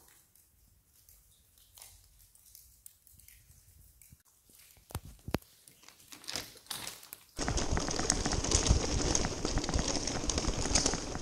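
Scattered footsteps and crunches on a loose stony tunnel floor, then from about seven seconds in a bicycle rolling over the rough rubble floor: a sudden, steady, loud crunching rattle of tyres and bike.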